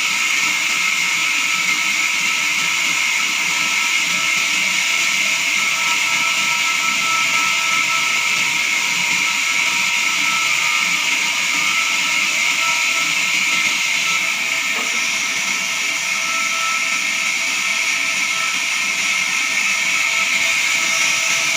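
Horizontal band sawmill blade cutting through a jackfruit log: a steady, even hiss with a faint high whine, unchanging throughout.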